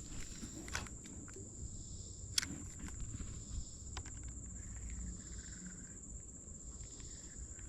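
A steady high-pitched insect trill over a faint low rumble, with a few scattered soft clicks and taps.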